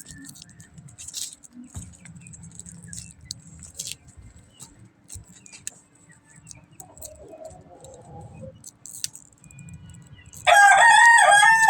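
A rooster crows loudly near the end, a long pitched call. Before it there are only faint scattered clicks and a low background rumble.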